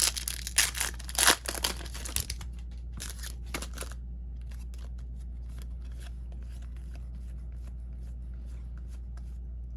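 Foil trading-card pack wrapper being torn open and crinkled for about four seconds, then softer scattered ticks of the cards being handled.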